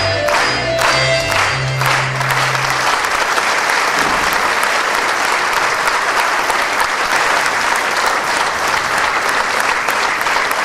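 A Polish folk band with double bass plays the last beats of a dance tune and ends on a held chord about two to three seconds in. Steady audience applause follows.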